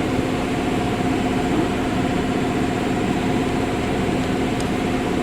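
Ford Ranger engine idling steadily with a knocking noise, a fault the mechanic is recording to find the cause of.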